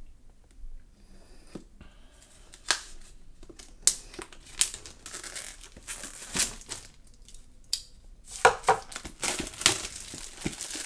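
Knife blade slicing and scraping through packing tape on a cardboard box, with sharp tearing scratches and snaps. About eight seconds in it gives way to denser crinkling and tearing of plastic wrap.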